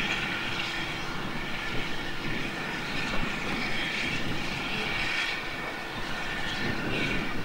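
Steam locomotive No 3 Twizell working a train as it approaches, its exhaust a steady rushing sound that swells and fades.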